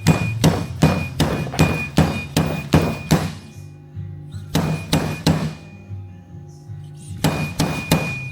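Fork seal driver striking repeatedly to drive the oil seal into a Harley-Davidson fork slider, sharp metal-on-metal hits with a ringing note. A quick run of about eight strikes, then two short bursts of three or four, each strike about half a second apart.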